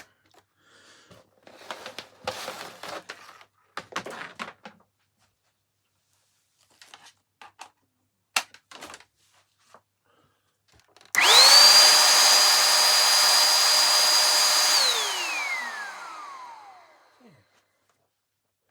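Hoover HL4 Pet upright vacuum cleaner's motor switched on after some handling and clicks: a rising whine settles into a steady run for about three and a half seconds, then winds down with falling pitch once switched off. It is a power-on test that shows the rewired mains cable now works.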